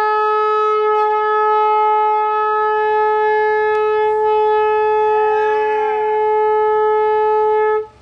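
Hose-fed chrome trumpet air horn sounding one long, steady blast that cuts off just before the end. A fainter tone rises and falls in pitch behind it about five seconds in.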